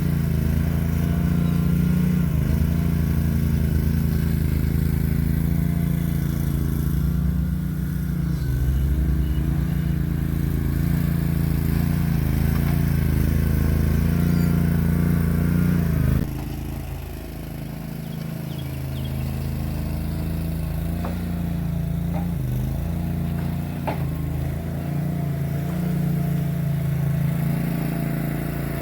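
Boxer 320 mini skid steer engine running steadily under work. About 16 seconds in, the sound cuts abruptly to a quieter, lower engine note that wavers a little.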